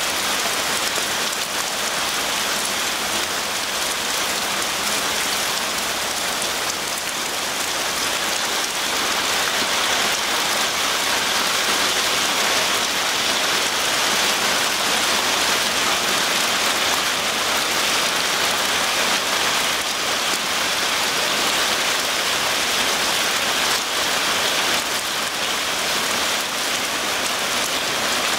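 Heavy rain mixed with small hail falling steadily, a dense, even hiss that grows a little louder about nine seconds in.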